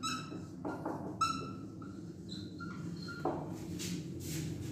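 Dry-erase marker squeaking on a whiteboard as a word is written: a string of short, high squeaks, followed by softer scratching strokes.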